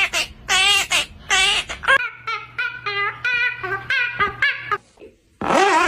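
Talking parrot giving a run of high, wavering, laugh-like calls in short repeated syllables, with a longer call near the end.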